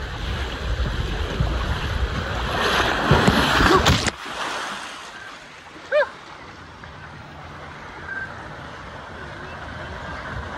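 Water rushing under a rider sliding down a water slide, growing louder until the plunge into the pool about four seconds in, where the rush cuts off suddenly. Afterwards a quieter steady splash of the slide's water pouring into the pool, with one brief high-pitched cry about two seconds later.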